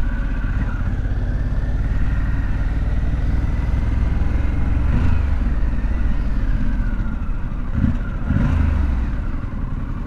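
Harley-Davidson Pan America 1250 Special's V-twin engine running at low road speed, heard from the saddle, with brief changes in throttle about five and eight seconds in and easing off near the end as the bike slows.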